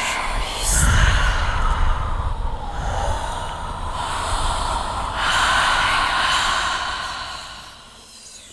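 Airy, breath-like whooshing noise that swells and ebbs, with a low rumble setting in about a second in. It fades away near the end.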